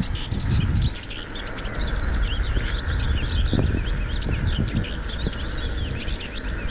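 Many small birds chirping in quick, overlapping calls over the steady low rumble of bicycle tyres rolling; the rumble is heavier for the first second.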